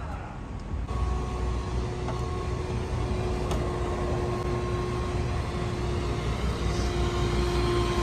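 A vehicle horn held down in one long steady tone, starting about a second in, over the low rumble of vehicle engines.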